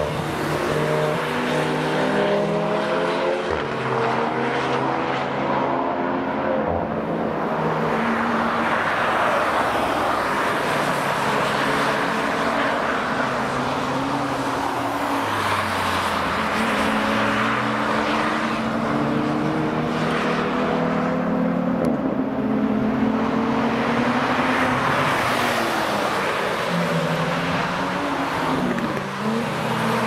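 Several cars passing one after another at speed through a bend, their engine notes overlapping and rising in pitch in steps as they accelerate and shift gears, each swelling and fading as it goes by.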